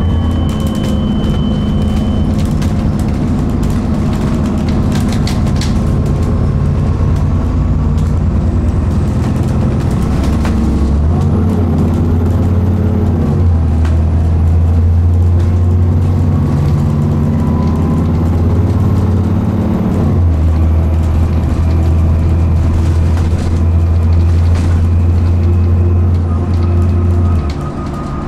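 Inside an Alexander Dennis Enviro400 Trident double-decker bus under way: the diesel engine and drivetrain run with a deep, steady drone and road noise. The engine note changes about 13 and 20 seconds in, and the drone eases off near the end.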